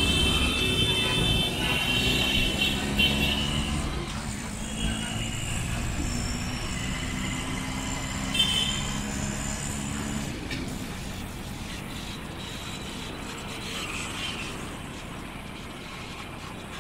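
City road traffic: engines and tyre rumble, with short horn honks in the first few seconds and once more about halfway through. The traffic noise grows quieter toward the end.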